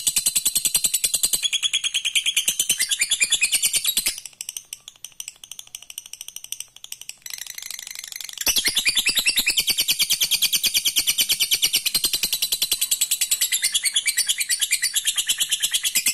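Lovebird giving its long 'ngekek' chatter, a fast, even trill of high notes. It breaks off about four seconds in and starts again at full strength about halfway through.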